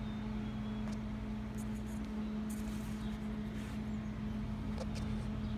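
A steady mechanical hum with a constant low tone, and a few faint light clicks as the metal snail is handled on a towel.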